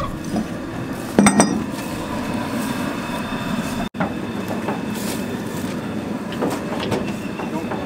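Propane cooker burner running with a steady rushing noise under a 55-gallon barrel of scalding water. A short metallic clink about a second in comes from the metal bell-type hog scrapers being handled.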